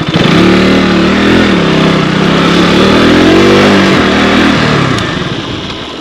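Motorcycle engine revving up and down while riding, its pitch climbing and falling several times, then easing off and fading in the last second or so. A steady rush of wind noise runs over it.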